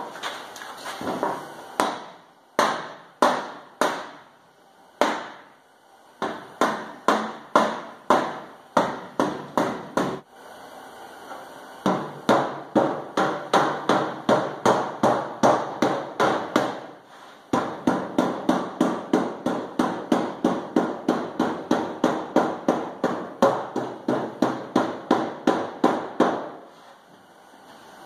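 Soft-faced mallet tapping a sheet-metal wheel tub, light quick taps at about three a second in runs with short pauses, bending the tub's edge lip over against a wooden block backstop a little at a time.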